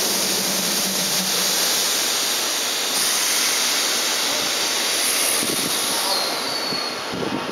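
Keihan 2600-series electric train starting to pull out of the station, with a steady loud hiss and a brief falling high squeal about six seconds in.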